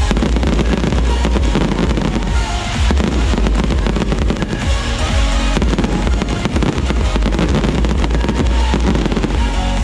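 Fireworks display: a dense run of rapid bangs and crackling, over loud music with a heavy bass played for the show.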